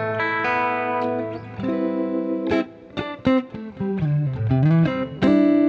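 Electric guitar played through a Kemper Profiler, with the tremolo set to duck under hard playing. Ringing chords give way to single picked notes, one of which dips in pitch and comes back up, and the phrase ends on a loud chord struck about five seconds in that rings on.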